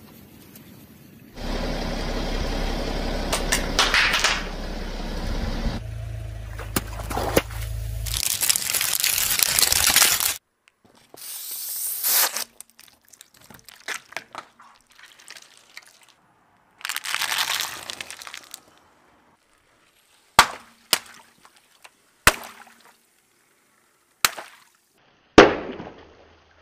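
Objects crushed one after another under a rolling car tyre: a long spell of wet squashing and crunching, then shorter bursts of crushing, and near the end five sharp cracks a second or two apart.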